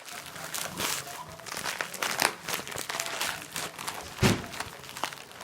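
Shipping package being opened by hand: irregular crinkling and tearing of the packaging, with one louder knock about four seconds in.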